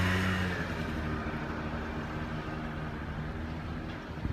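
An engine running with a steady low hum, loud at the start and fading within the first half-second to a fainter, rougher rumble.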